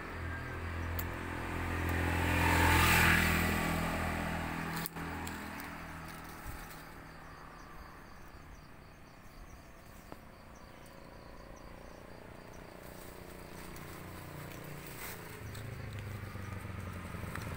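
A motor vehicle passing: its engine hum swells to a peak about three seconds in and fades away, and another vehicle starts to approach near the end. A single sharp click about five seconds in.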